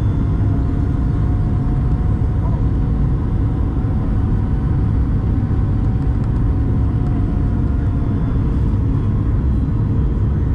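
Cabin noise of a Boeing 737 MAX 8 on final approach: a steady low rumble of its CFM LEAP-1B engines and airflow, with a faint steady whine above it.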